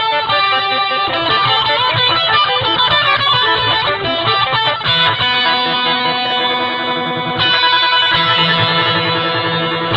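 Electric guitar played through a custom reverb pedal, its notes ringing on and overlapping in a dense reverb wash. New notes are struck about five seconds in and again about two and a half seconds later.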